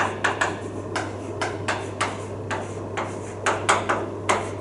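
Chalk writing on a blackboard: a quick, irregular run of sharp taps and clicks as the chalk strikes the board, over a steady low hum.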